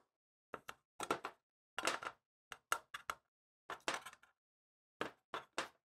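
A dozen or so short, irregular clicks and rustles of wire leads being pushed through the opening of a sheet-metal capacitor box, the metal box shifting and knocking lightly under the hands.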